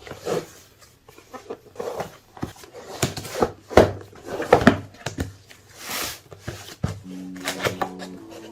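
Cardboard box and packaging being handled and opened: irregular knocks, taps and rustling, with a brief scraping hiss about six seconds in. Background music with held notes comes in near the end.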